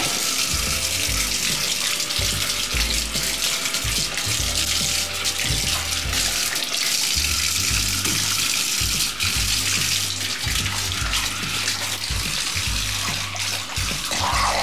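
Bathtub faucet running a steady stream into the tub, the water splashing as a golden retriever puppy bites at the stream and paws at the drain.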